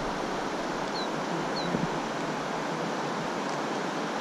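River water running steadily over the riffles in an even rushing noise, with two faint short high chirps about a second and a second and a half in.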